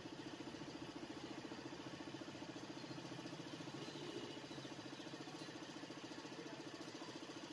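A small motor running steadily with a fast, even pulse, about ten beats a second.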